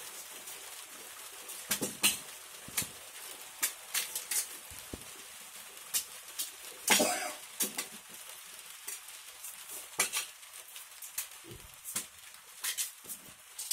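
Knives cutting and scraping fresh cassava roots as they are peeled: irregular sharp chops and clicks, roughly one every half second to second, one louder knock about seven seconds in.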